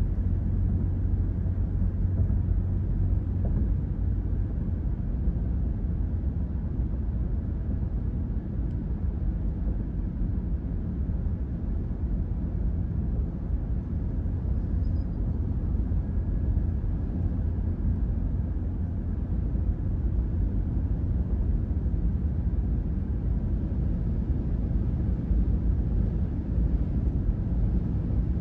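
Steady low road hum of a car cruising on a highway: tyre and engine noise heard from inside the vehicle.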